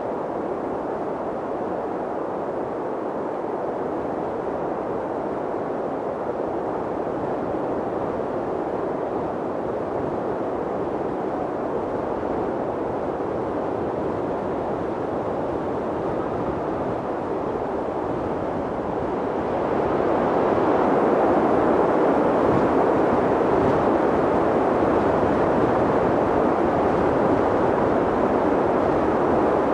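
Wind blowing steadily, an even rushing noise that swells louder about twenty seconds in and stays up.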